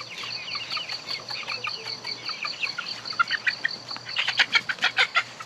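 Young chickens cheeping: many short, falling peeps, over an insect's steady high chirping at about five pulses a second. About four seconds in comes a burst of louder, sharper peeps as the birds take fright at a dog.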